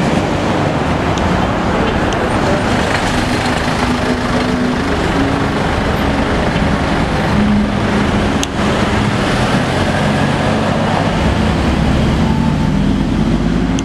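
Cars driving past one after another at close range, engines running and tyres on the road, with engine notes rising and falling as each car goes by. A single sharp click about eight seconds in.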